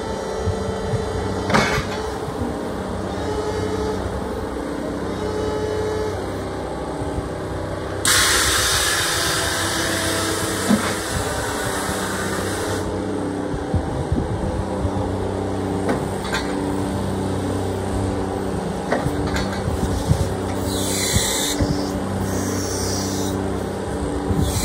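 2002 Cat EP18K battery-electric forklift working its mast and driving, with a steady electric motor hum and whine that holds several low tones. A loud hiss comes in about eight seconds in and lasts some five seconds, and a shorter one comes near the end, with scattered clunks.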